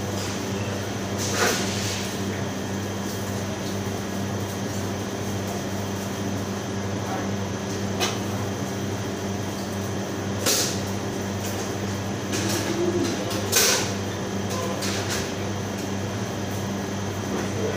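Steady electrical machinery hum of a commercial bakery kitchen (refrigerators, ovens and ventilation), with a few short clatters and knocks of metal pans or containers being handled, the loudest about fourteen seconds in.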